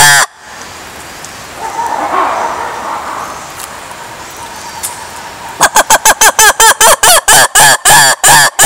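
A lemur calling: a quiet stretch, then about five and a half seconds in a rapid run of loud calls, about five a second, each one rising and falling in pitch.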